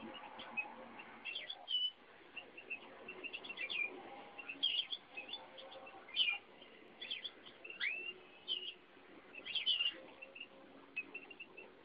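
Caged finches, a Eurasian bullfinch and a canary, chirping with quick, high, scattered call notes and a rising whistled note about eight seconds in.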